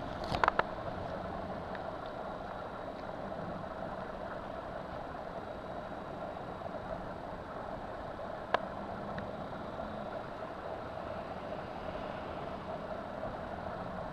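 A steady mechanical hum with a faint low tone under it, broken by a few sharp clicks about half a second in and one more sharp click at about eight and a half seconds.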